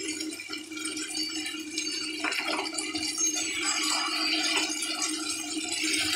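Silicone spatula stirring chicken pieces through thick, simmering sauce in a frying pan, with soft scraping and small wet clicks, over a steady low hum.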